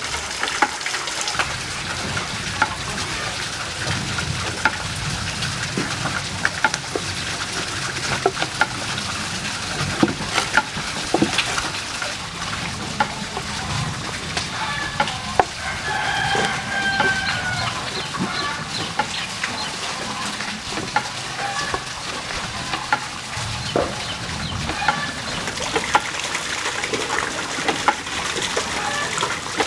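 Meat cleaver chopping pork on a wooden board: sharp knocks at irregular intervals. Chickens are heard in the background, with one longer call about halfway through.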